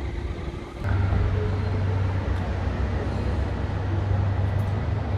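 City street traffic: passing cars and engines running as a steady noise, with a low hum that gets louder about a second in.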